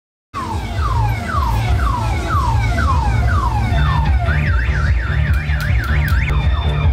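Electronic car alarm cycling through its tones: a falling whoop repeated about twice a second, then about four seconds in a fast up-and-down warble. Music with a heavy bass beat plays underneath.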